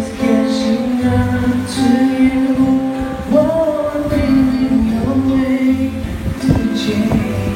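Music: a song with a singing voice over instrumental accompaniment, steady and loud.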